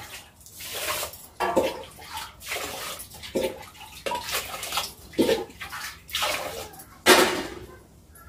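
Water scooped with a steel tumbler and poured into an aluminium pot, splashing in a string of separate pours, about eight or nine in all, the loudest one near the end.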